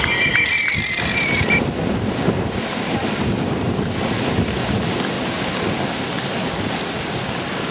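Steady rushing noise of wind and rain on the microphone, with a high steady tone during the first second and a half.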